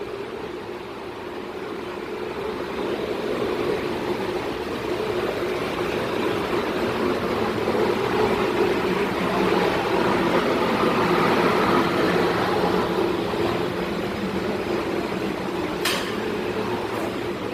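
Steady machinery drone in a cruise ship's forward thruster room, from electric motors and ventilation fans running. It grows louder toward the middle and eases a little afterward, with a single sharp click near the end.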